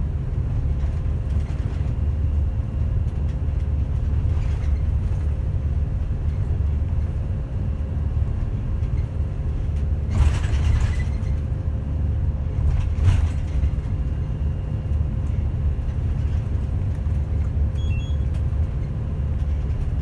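Route bus heard from inside the cabin while driving: a steady engine drone with road rumble. Two brief hissing noises come about halfway through and again a few seconds later.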